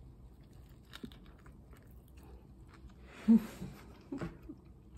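A person biting into and chewing a soft roast beef and quinoa roll, with small wet mouth clicks and one brief, louder mouth sound about three seconds in.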